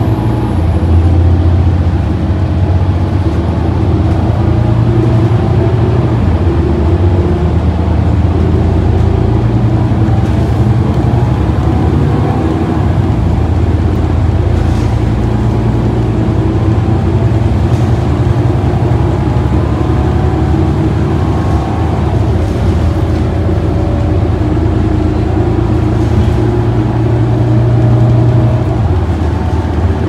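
Inside the cabin of a 2023 New Flyer Xcelsior XD40 transit bus under way: its Cummins L9 inline-six diesel engine drones steadily, with road noise, and the engine note shifts a few times as the bus drives along.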